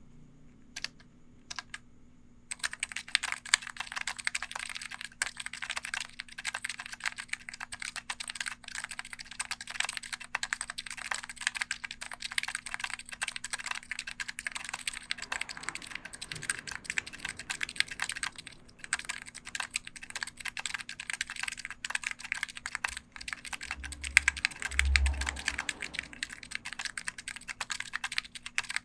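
Typing on a Matrix Lab 6XV2 Falcon electrostatic capacitive (Topre-style) keyboard with PBT keycaps, 35 g domes, silencing rings and lubed housings. Two single keystrokes come first, then fast continuous typing from about two and a half seconds in. A low thump comes about 24 seconds in.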